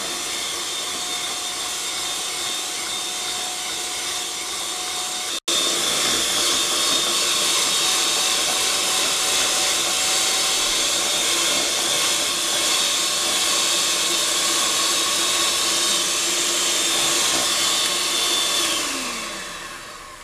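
Electric hand mixer on a stand with a rotating bowl running steadily at speed, its beaters whipping zefir syrup into a thick white foam; a steady motor whine. It cuts out for an instant about five seconds in, then runs on slightly louder, and near the end the motor winds down with a falling pitch and stops.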